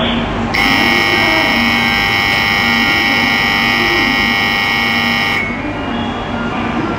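Shinkansen platform departure buzzer sounding in one steady, unbroken tone for about five seconds, then cutting off abruptly: the signal that the train's doors are about to close. A low steady hum runs underneath.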